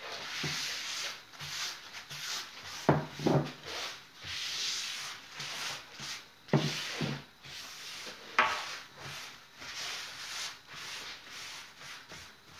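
Wooden countertop being wiped by hand in repeated back-and-forth rubbing strokes. A few sharp knocks come about three seconds in, around six and a half seconds and near eight and a half seconds.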